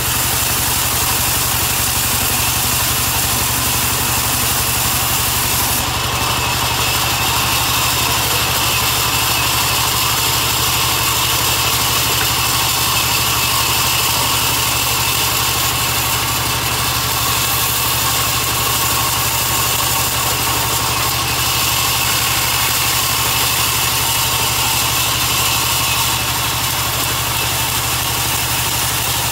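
Large sawmill band saw running steadily, its blade cutting through a log slab, with a deep, even hum from the machine's drive under a continuous hiss of sawing.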